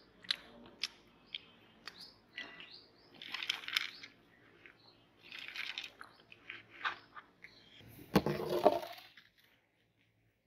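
Popped popcorn rustling and crinkling as a hand rummages through it on a plate, with scattered small clicks. About eight seconds in comes a louder rubbing, scraping noise lasting about a second, then it falls silent.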